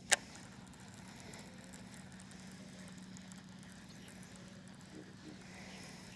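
A single sharp knock or slap right at the start, over a steady low hum and faint outdoor background.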